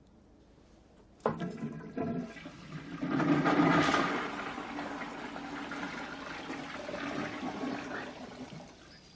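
A toilet being flushed: a sharp clank about a second in, then rushing water that swells to its loudest a couple of seconds later and slowly drains away.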